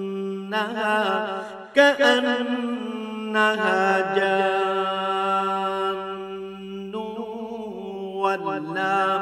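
A man reciting the Quran in Arabic in a slow, melodic chant, holding long drawn-out notes.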